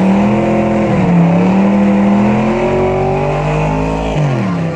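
Muscle car engine held at high revs during a burnout, its pitch climbing slowly, then falling sharply near the end as the revs drop.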